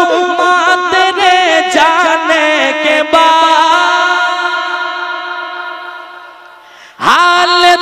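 A man's solo voice singing a devotional naat, drawing out ornamented, wavering notes. About three seconds in he settles on one long held note that slowly fades away, and the singing comes back in loudly near the end.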